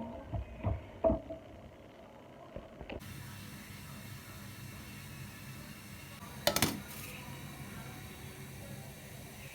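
Kitchenware clinking and knocking: a few light clinks with a short ring in the first second, then one sharper knock about six and a half seconds in, over a steady hiss.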